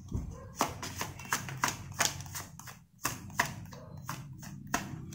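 Tarot deck shuffled by hand: a string of irregular sharp card slaps and taps, over a low steady hum.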